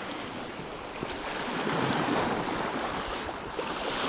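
Sea surf washing and splashing against the rocks at the water's edge, with wind on the microphone; the wash swells about halfway through.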